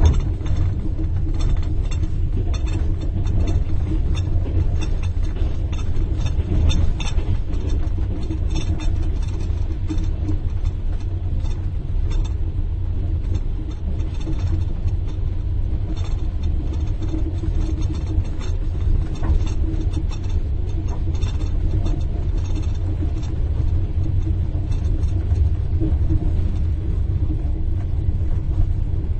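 The steady low rumble of a moving train heard inside a compartment, with a spoon tinkling against a cup in many small, irregular high clicks.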